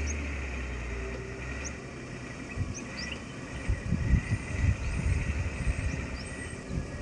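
Mitsubishi Fuso tronton truck's diesel engine running with a steady low hum that drops away about two seconds in, followed by a few seconds of irregular low rumbles. Short high chirps of birds and a steady high tone sit above it.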